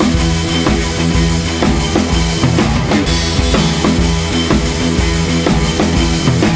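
Background music: a track with a steady drum-kit beat and sustained instrument notes.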